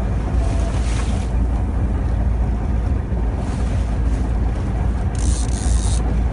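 Small fishing boat at sea: steady low rumble of the boat and water, with wind on the microphone and two brief hisses, about a second in and near the end.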